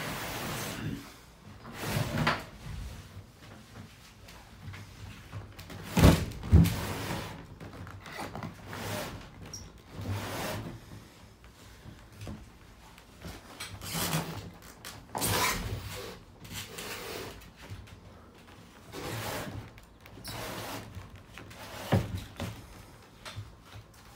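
The molded plastic dome shutter of a NexDome observatory being worked by hand: an irregular series of knocks, bumps and scrapes of hard plastic panels, loudest in two sharp thumps about six seconds in.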